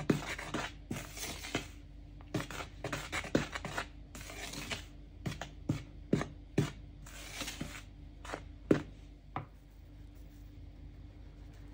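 A spoon stirring dry flour and cocoa powder in a plastic bowl: scraping swishes mixed with irregular knocks of the spoon against the bowl, stopping about nine seconds in.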